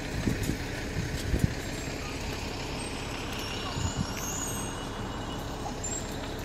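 Outdoor street ambience: a steady low rumble with a few dull thumps in the first couple of seconds and again about four seconds in.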